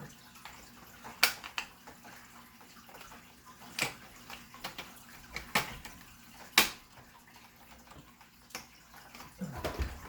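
Plastic clips of a Dell XPS17 L702X laptop screen bezel snapping loose as the bezel is pried off, a handful of sharp clicks a second or two apart, the loudest about two-thirds of the way through.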